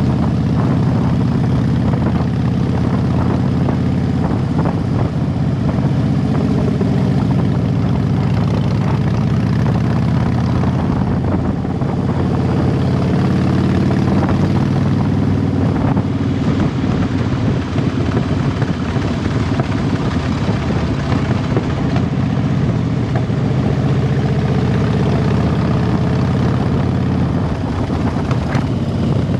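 Harley-Davidson Dyna Super Glide Custom's 1584 cc V-twin running through a Vance & Hines aftermarket exhaust while the motorcycle is ridden at steady speed, a deep, even exhaust note.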